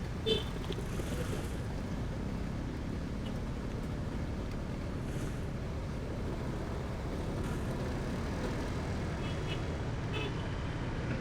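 Steady engine, tyre and wind noise of a motorcycle riding in traffic, with a short high beep about a third of a second in and faint high tones near the end.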